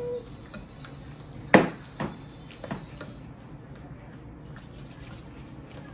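Kitchen clatter during baking: one sharp knock about a second and a half in, then two fainter knocks, over quiet room noise.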